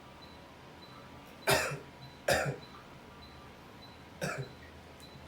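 A man coughs twice forcefully in quick succession, under a second apart, then gives a weaker third cough about two seconds later. These are deliberate effective coughs: the first loosens the mucus and the second brings up the sputum.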